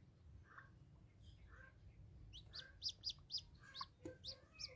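Newly hatched chicken chick peeping: a quick run of high, falling peeps starting about two seconds in, then a few more near the end, over softer, lower chicken calls.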